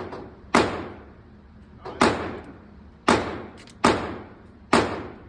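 Five gunshots at an uneven pace of about one a second, each a sharp crack followed by a long echoing decay.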